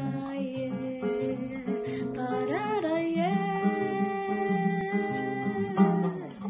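A woman singing long held notes, sliding up and back down about two and a half seconds in, over a strummed acoustic guitar; the sung note fades out near the end.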